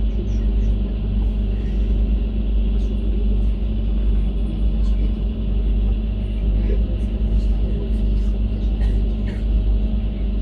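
Vacuum sewage truck's engine and suction pump running steadily as it pumps out a train carriage's bio-toilet tank through a hose: a steady low rumble with a constant hum.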